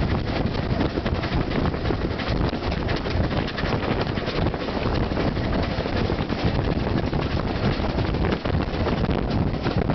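Narrow-gauge steam train running along the line, heard from an open carriage window: a steady rattle of the coaches on the track, with wind buffeting the microphone.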